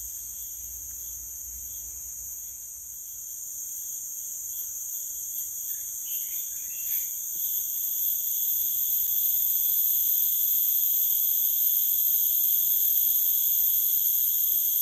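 Steady chorus of forest insects, a shrill buzzing in several high bands that swells louder about halfway through, with a few brief chirps in the middle.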